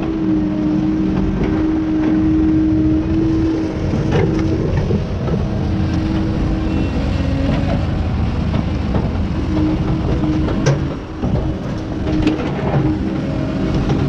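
Engine of heavy logging machinery running steadily with a low hum that shifts a little in pitch, and a few sharp knocks.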